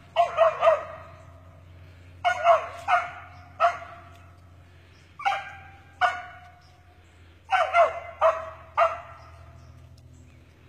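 Cur dog barking treed at a fox squirrel up a tree, a chop bark in ragged bursts of one to four barks, about fourteen in all. The barks stop about a second before the end.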